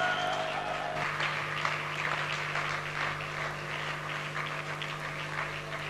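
Concert audience applauding, a dense patter of clapping hands. Near the start a held tone sounds and stops about a second in, and a steady low electrical hum runs underneath.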